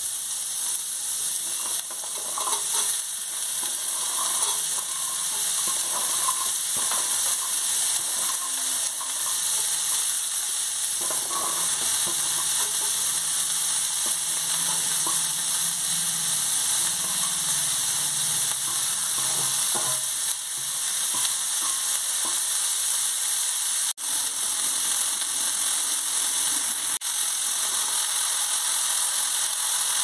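Sliced shallots frying in oil in an aluminium wok with a steady high sizzle, stirred and scraped with a metal spatula, the scraping mostly in the first half.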